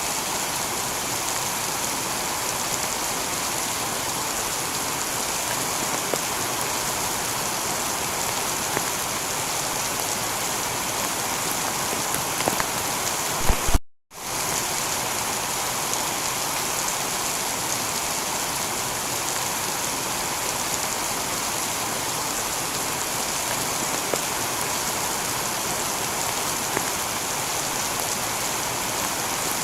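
Heavy rain falling steadily on a tiled roof: an even hiss with scattered sharper drop taps. The sound cuts out completely for a split second about halfway through.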